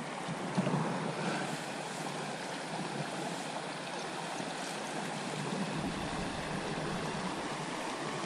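Shallow river riffle: water running and rippling over stones in a steady rush.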